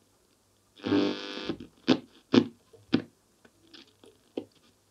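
Grundig 2140 valve radio's loudspeaker on shortwave while the dial is tuned across the band: short snatches of stations and noise come and go, with a longer burst about a second in, then several brief blips.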